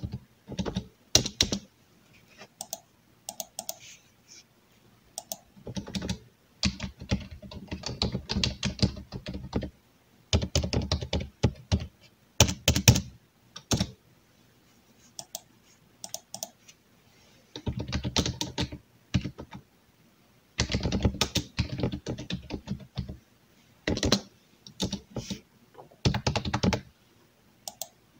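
Computer keyboard typing: runs of rapid keystrokes lasting a few seconds each, broken by short pauses.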